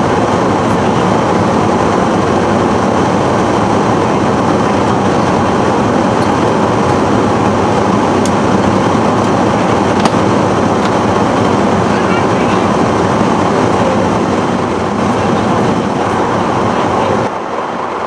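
Steady roar of an airliner cabin in flight, engine and airflow noise, dipping slightly shortly before the end.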